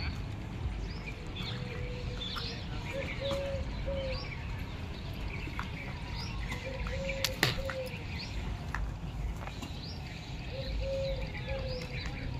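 Birds chirping, with short high chirps throughout and a low flat call note repeated in groups of two or three every few seconds, over a steady low rumble. One sharp click a little past the middle.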